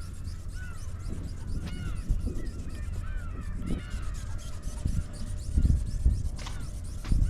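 Strong wind buffeting the microphone in gusts, with birds calling repeatedly in short rising-and-falling notes over it.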